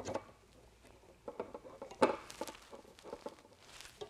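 Aluminium 15 mm rods being handled and fitted into rod clamps: scattered light clicks and knocks, with a louder clack and short scrape about two seconds in.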